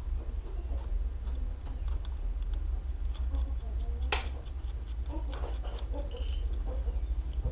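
Small clicks and light scrapes of a laptop hard drive and its metal bracket being handled, with a run of little ticks about three seconds in and one sharp click about four seconds in, over a low steady hum.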